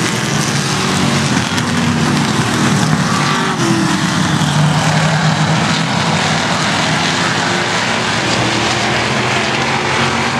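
Several rookie stock car engines running hard in a racing pack, a steady loud drone whose pitch rises and falls as the cars pass.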